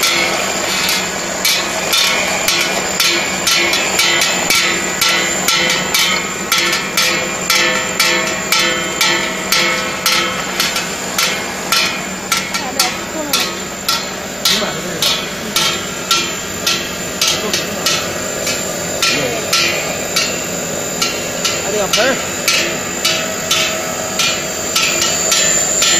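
Electric walnut grinding machine running as walnuts are ground into paste, a steady machine hum under a regular knocking, about three knocks every two seconds.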